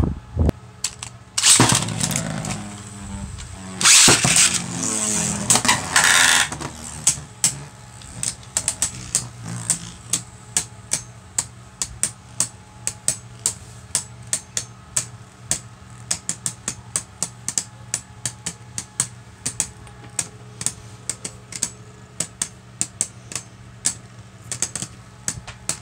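Two Beyblade Burst tops, Spryzen Requiem and Cyclops, in a plastic stadium. In the first few seconds there are loud rattling bursts of launching and first clashes. Then the two tops spin pressed side by side with a steady whir and rapid, irregular clicking as they grind together, which is typical of Spryzen Requiem probably spin-stealing from Cyclops.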